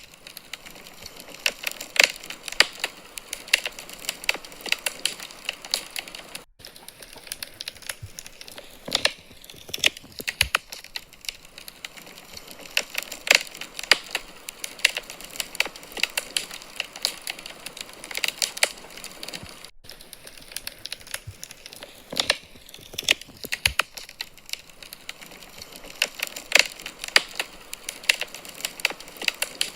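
Wood fire crackling in a fireplace: irregular sharp pops and snaps over a soft hiss.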